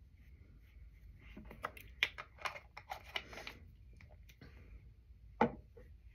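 Light clicks and taps of a makeup brush being worked against a small product container, in a quick cluster a bit over a second in, then one sharper click about five and a half seconds in.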